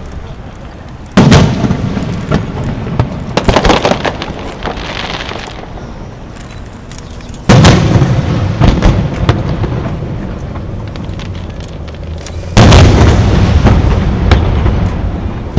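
Aerial firework shells bursting: three loud booms about one, seven and a half, and twelve and a half seconds in, each rumbling away over a few seconds. A run of sharper crackling pops comes about three and a half seconds in.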